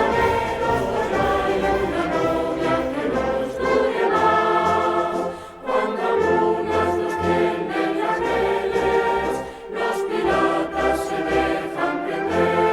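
Music with a choir singing sustained phrases, with short breaks between phrases about five and a half and ten seconds in.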